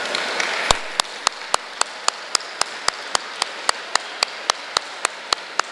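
A wash of noise fades out within the first second. It gives way to a steady, evenly spaced run of sharp clicks, about four a second.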